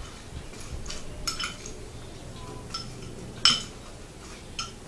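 Metal spoon clinking against a glass bowl while stirring popcorn: a few sharp, ringing clinks, the loudest about three and a half seconds in.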